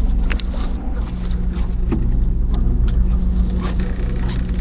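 Fishing boat's engine running, a steady low drone, with faint scattered clicks and taps on top.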